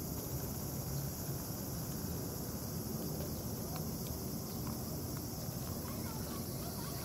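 Steady high-pitched chorus of insects, with faint irregular crunching clicks as a cat chews dry kibble from a plastic tray, over a low rumble.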